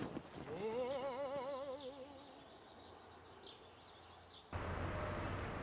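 Cartoon soundtrack: a brief wavering musical note with vibrato over faint bird chirps. About four and a half seconds in, it cuts to a steady, even background hubbub.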